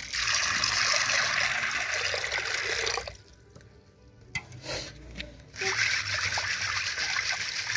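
Water poured into an aluminium pot of dried beans, a steady splashing pour for about three seconds. After a short pause, the beans are swished and rubbed by hand in the water to wash them, from a little past halfway to the end.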